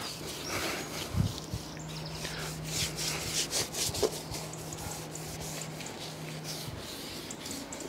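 Bristle brush scrubbing the awning rail and side panel of a caravan, a run of short quick rubbing strokes, busiest in the first half.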